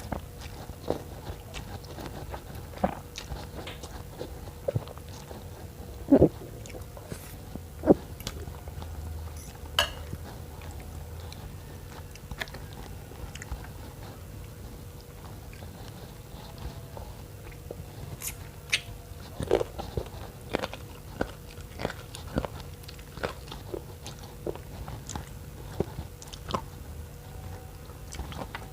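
Close-up eating sounds of a person eating spicy noodle soup with bones: irregular chewing, biting and mouth smacks, a few louder than the rest about six and eight seconds in, over a steady low hum.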